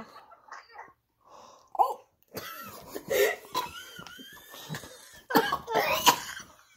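A woman coughing and gagging after swallowing a foul-tasting drink, quiet at first, then a run of coughs over the last few seconds, the loudest about five to six seconds in.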